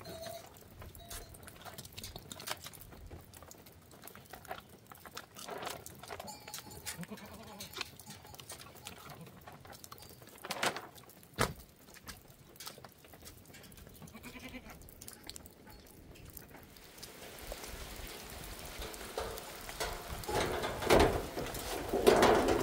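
A goat bleating briefly a few times amid footsteps and knocks, with a sharp knock about halfway through. Rain noise swells near the end.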